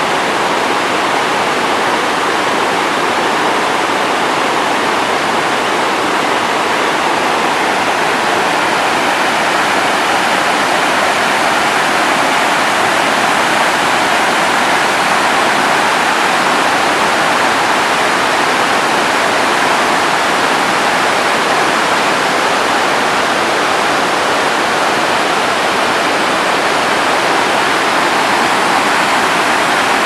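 Bow Falls on the Bow River: white water pouring over the rock steps. The rushing is loud and steady throughout, with no breaks.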